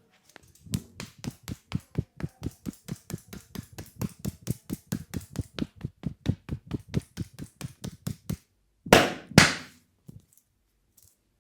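Rapid, even hand-tapping percussion of a barber's head massage, about five strikes a second, then two much louder hits close together near the end.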